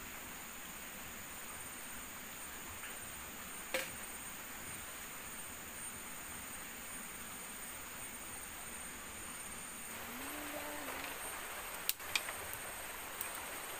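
Steady high-pitched drone of forest insects over a soft hiss, with a single knock about four seconds in. Near the end come a few sharp clicks of a knife striking kindling.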